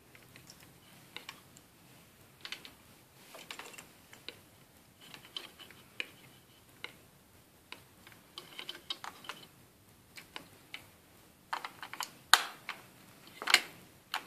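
Small irregular plastic clicks and rattles as IV tubing and its clamp are handled and fitted into an infusion pump, with a few louder snaps near the end as the pump's door is pressed shut.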